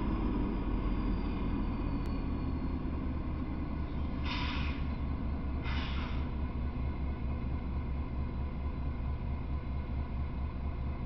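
Norfolk Southern diesel locomotive rumbling low with an even throb as the train slows to a stop. Two short hisses of air come about four and six seconds in.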